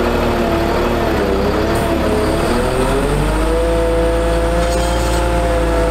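A Caterpillar C7 diesel engine is running to power a bucket truck's hydraulic boom, with a steady low hum under a whine. The whine sags in pitch about a second in, then climbs and holds steady from about three and a half seconds.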